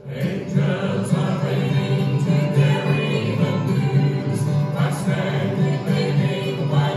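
Small gospel vocal group singing in harmony with acoustic guitar, the song coming in loud right at the start after a brief lull.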